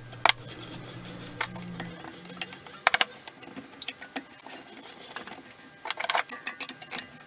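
Scattered metal clinks and knocks of spanners on a bench grinder's wheel nut and being set down on a wooden bench. One sharp knock comes about three seconds in, and a quick run of clinks comes near the end.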